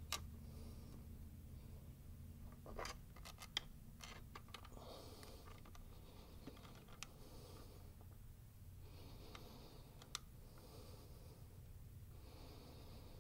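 Near silence with a low hum and a few faint, scattered clicks and scrapes: the inspection camera's cable being moved about in an engine's intake ports.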